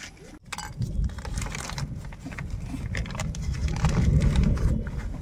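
Crinkling and rustling of a plastic nursery bag as it is handled and worked off a vinca's root ball, over a heavy low rumble that is loudest around the middle.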